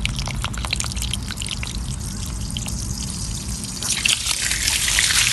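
Water trickling and dripping as an air-conditioner condensate drain line is flushed with a garden hose to clear a clog, swelling into a louder gush about four seconds in.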